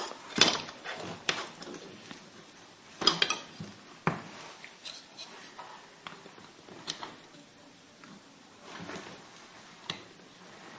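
Hard plastic toy pieces clicking and knocking together as they are handled and set in place, a scattering of separate clacks with quieter rustling between them.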